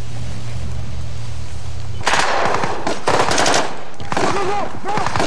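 A low steady hum, then bursts of rapid automatic small-arms fire starting about two seconds in, several volleys in quick succession.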